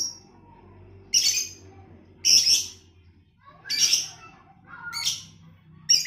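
Caged lovebird giving four short, shrill calls spaced a second or so apart.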